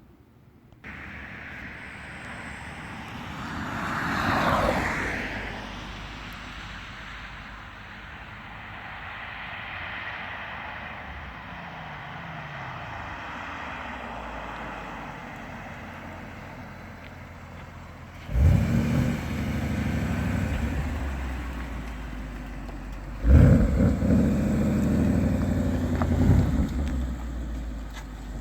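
Ford Mustang 5.0 V8 on its stock exhaust, first a low background rumble, then two sudden loud bursts of engine noise about two-thirds of the way in and again some five seconds later, each easing off gradually. A separate sound swells and fades a few seconds in.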